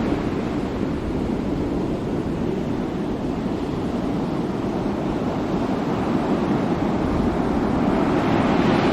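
Ocean surf: waves washing on a shore in a continuous rush of water. The surge eases just after the start and the next wave swells up near the end.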